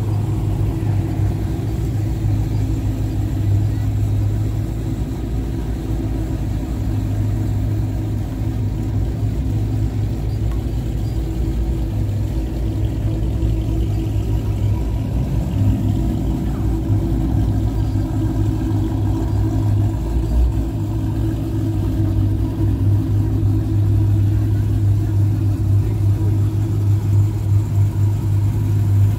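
Car engine idling close by, a low, steady engine note that holds unchanged throughout.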